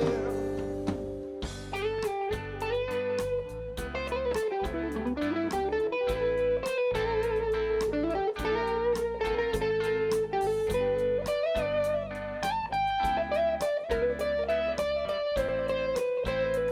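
Live band playing an instrumental break: a lead melody line with pitch bends and slides, most likely electric guitar, over bass and a steady drum beat.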